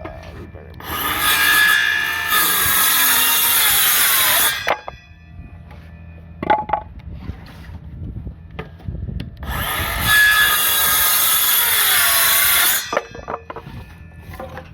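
Hilti 6½-inch cordless circular saw cutting through a 2x8 twice, each cut lasting about three to four seconds. The motor's whine drops in pitch as the blade loads up in the wood. A few knocks come between the two cuts.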